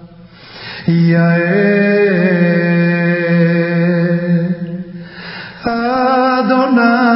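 Slow chant-like singing: long held notes with a short pause between them, one note running about four seconds with a small step up in pitch, then a new note starting near the end.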